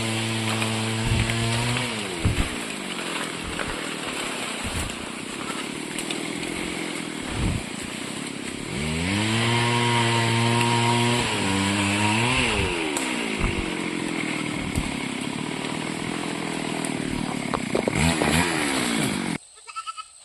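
A small petrol engine running at high speed. It drops back twice and revs up again in between, then cuts off suddenly near the end.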